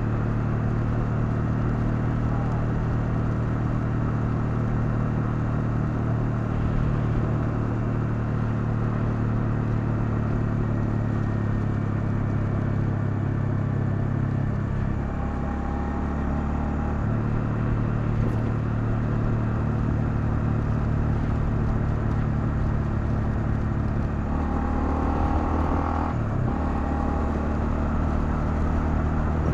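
Honda CL250's single-cylinder engine running steadily under way, with wind and road noise; the engine note shifts about halfway through and again near the end.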